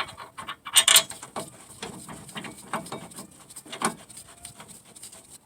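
A brief hiss from a WD-40 can with a flex straw about a second in, then scattered light clicks and knocks of tools and bolts on metal.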